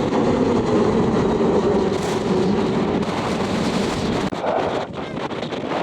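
A steady rumble of aircraft engines mixed with heavy wind buffeting on the microphone, easing about four seconds in.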